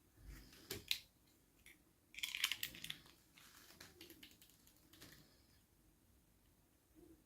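Small plastic toy packaging being handled during unboxing: scattered clicks and taps, with a short crinkling rustle about two seconds in.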